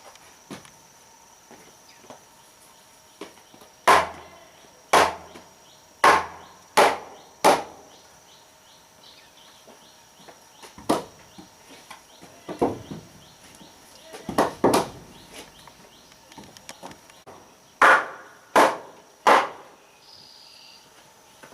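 Sharp blows of a tool on wood, in groups of three to five about a second apart with pauses between.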